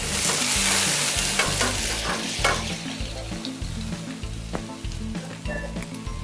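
Food sizzling hard in a wok over a high gas flame while a metal ladle stirs it, with a few clinks of the ladle against the pan. The sizzle is loudest for the first couple of seconds, then eases off.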